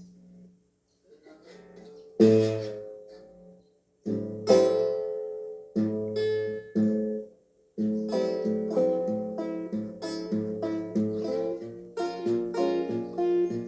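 Guitar strings played with a wooden incense holder used as a slide: a few separate plucked chords that ring and fade, then quicker continuous picking from about eight seconds in.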